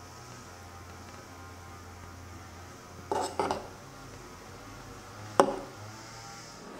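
Metal spoon clinking against a ceramic bowl while stirring: two quick taps about three seconds in, then a single sharper clink that rings briefly.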